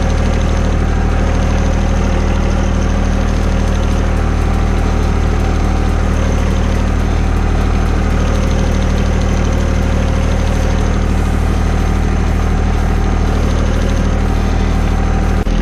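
John Deere 1025R sub-compact tractor's three-cylinder diesel engine running steadily, with an abrupt change in its low note near the end.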